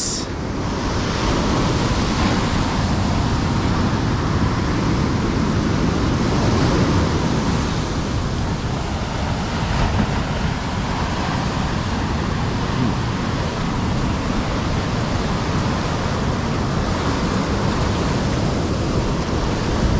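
Ocean surf breaking and foamy wash running up over the sand, a steady rushing noise that swells and eases.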